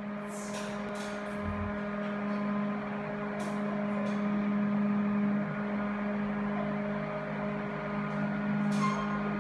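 KDK exhaust fan running with a steady electric motor hum, with a few light clicks and knocks as the fan is worked on.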